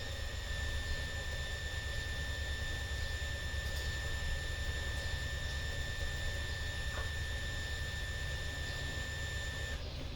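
A steady, high-pitched electronic tone, held for about ten seconds and cutting off abruptly near the end, over a low steady hum.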